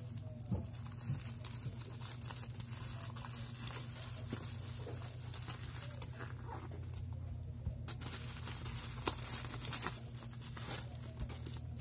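Plastic bubble wrap and packing tape crinkling and tearing as a parcel is cut open with scissors and pulled apart, with irregular crackles and snips over a steady low hum.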